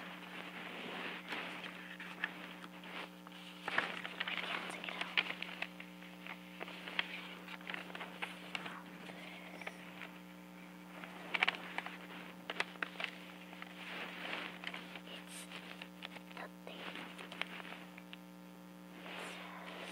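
Paper being handled and rustled, with scattered soft taps and clicks, over a steady electrical hum.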